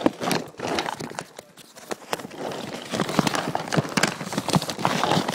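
An excited dog's claws clicking and scrabbling quickly on a hard floor, in irregular rapid taps that get busier about halfway through.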